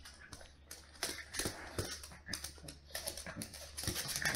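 A pug puppy tussling with and biting a small cushion on a wooden floor. Irregular quick clicks and scuffs come from its claws on the floor and from the fabric being dragged.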